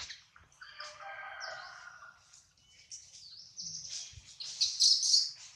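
Baby macaque crying: a wavering, pitched cry in the first couple of seconds, then shriller high squeals, loudest just before the end.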